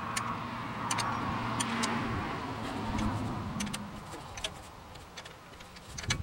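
Light metal clicks and clinks of a wrench and bolts against a steel engine fan as it is fastened to the water-pump pulley of a Ford 302 V8, over a low steady hum that fades out about halfway through.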